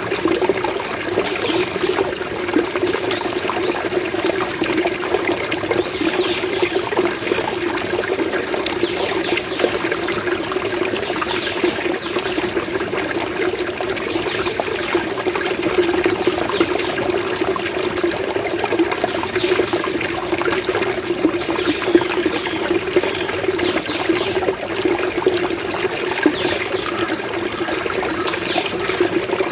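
Flowing water gurgling and burbling steadily.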